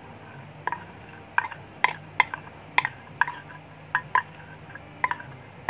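Metal spoon scooping thick cream out of a plastic jar over a stainless steel basin: about a dozen sharp metallic clinks at an irregular pace, each with a short ring.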